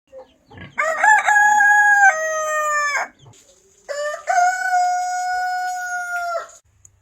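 Rooster crowing twice. Each crow is a long, held, pitched call that dips in pitch and cuts off at the end, the second crow starting about a second after the first ends.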